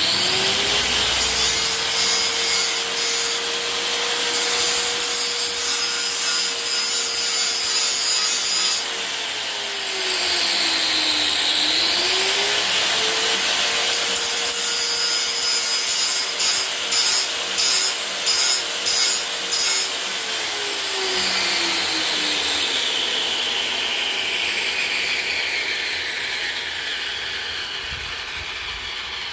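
A power tool running steadily with a whine that drops in pitch briefly before the middle and comes back up, as if briefly loaded. In the second half there is a run of quick rhythmic grinding strokes, and the tool then slowly winds down and fades.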